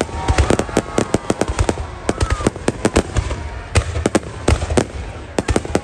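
Fireworks going off: a rapid, irregular string of sharp cracks and bangs, several a second, louder clusters about half a second in and again near the end.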